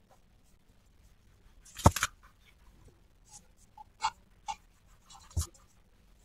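Paintbrush working on paper: faint scratchy dabs and strokes, with a few short taps and one sharper knock about two seconds in.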